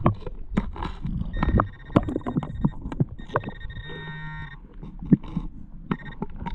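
Garrett AT-series metal detector sounding target tones while being swept: held, buzzy high-pitched tones and a low grunting tone about two-thirds of the way in, among many sharp knocks and clatters.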